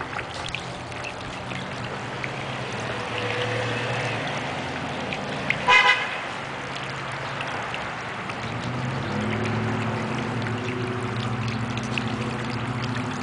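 Water trickling and splashing over an ice-encrusted gargoyle fountain into its frozen basin. A short car horn toot about six seconds in is the loudest sound, and a low vehicle engine hum comes and goes.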